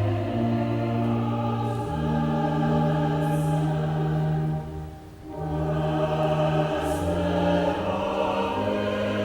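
A choir singing in slow, held phrases, with a short break for breath about five seconds in.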